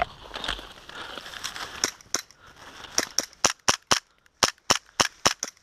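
Airsoft gas pistol firing. A few separate shots come first, then from about three seconds in a quick string of about ten sharp cracks at roughly four a second.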